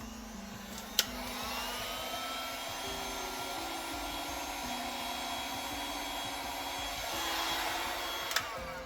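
Handheld electric blower switched on with a click about a second in, its motor whine rising as it spins up, then running steadily with a rush of air before it is switched off with a click near the end, as used to push wet resin into wave lacing. Quiet background music plays underneath.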